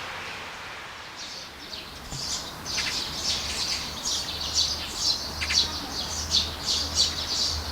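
Small birds chirping: a rapid run of short, high calls, two or three a second, starting about a second in as the last of the music dies away.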